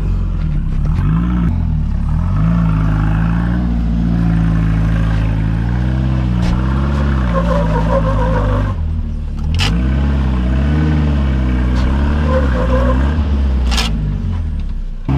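4x4 minivan's engine revving up and down again and again as it crawls over rock ledges. A sharp clack comes about nine and a half seconds in, and another near the end.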